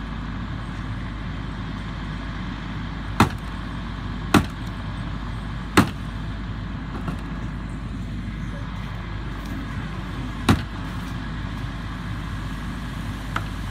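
Steady low drone of an idling engine, broken by sharp pops: three a little over a second apart, a fourth several seconds later, and a faint one near the end.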